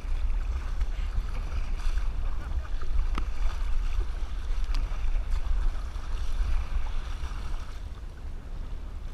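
Wind buffeting the microphone in a steady low rumble, with water splashing and sloshing against a plastic kayak's hull as it is paddled.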